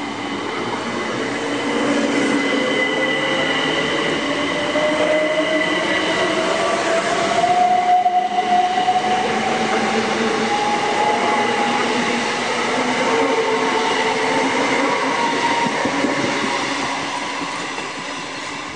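Class 375 Electrostar electric multiple unit pulling away from the platform and accelerating past. A whine climbs steadily in pitch over the rumble of the wheels on the rails. It is loudest about eight seconds in, as the train passes close, then fades as it draws away.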